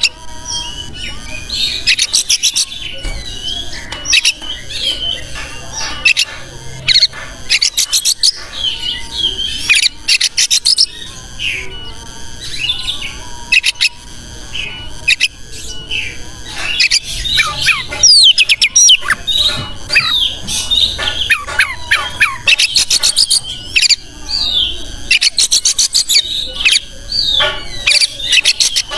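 Oriental magpie-robin (kacer) singing continuously: a fast, varied run of sharp high chirps, rapid trills and gliding whistles.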